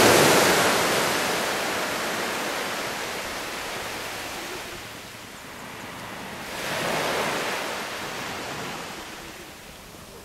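Small waves breaking and washing up a sandy beach. The loudest surge comes at the very start and fades over several seconds, and a second, smaller wash comes in about six and a half seconds in.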